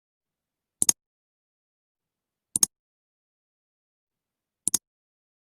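Three short, sharp double clicks, each a quick pair of high ticks, about two seconds apart.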